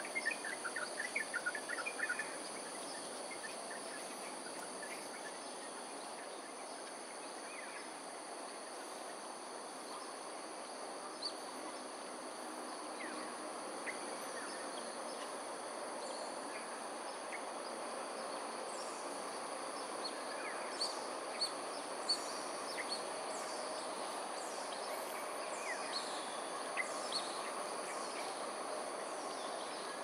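Outdoor ambience of a steady insect drone, crickets or similar, in several high, even-pitched bands over a constant background hum. A quick run of chirps comes in the first two seconds, and scattered short, high chirps follow through the rest.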